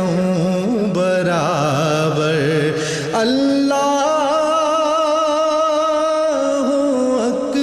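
Naat sung by a male voice, drawing out long wavering melismatic notes with a note held for about three seconds in the middle.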